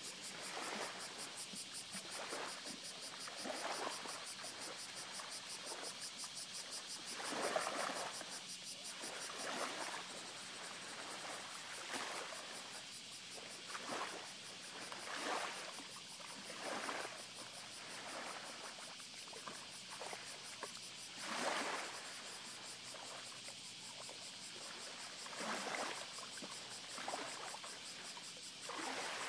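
Shallow seawater sloshing and splashing softly and irregularly, every second or two, as a small dog is held and washed in it, over a steady high-pitched drone.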